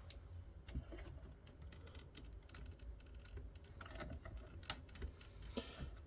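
Scattered light clicks and taps of a screwdriver and small metal parts being handled while working on the subwoofer's board, with a short scrape near the end. A faint steady low hum runs underneath.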